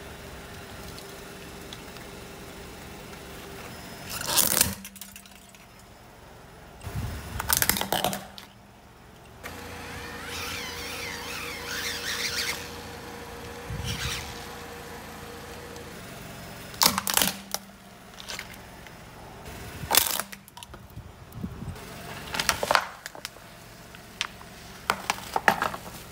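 Car tyre rolling over and crushing hard plastic toys: several sudden loud cracks and crunches over the steady hum of the idling car. In the middle a small battery toy fan motor whirs steadily for several seconds.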